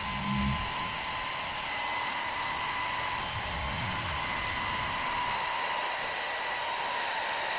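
Task Star 12 V electric hydraulic jack's motor running steadily with a high whine as it pumps the jack up under the weight of a car.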